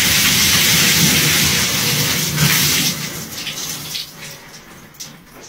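A basin of water poured over a person's head, splashing loudly onto the floor for about three seconds, then dwindling to scattered drips and small splashes.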